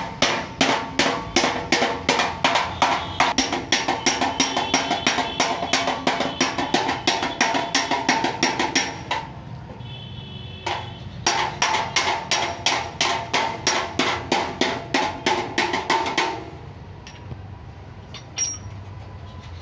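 Hand hammer beating the dented steel front bumper of a Mahindra Bolero: rapid, even strikes about three a second with a metallic ring, straightening out crash damage. The strikes pause for about two seconds near the middle, then stop a few seconds before the end.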